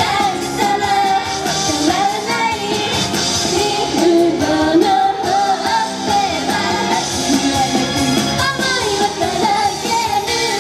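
A girl singing a Japanese idol pop song live into a handheld microphone over loud, steady pop backing music.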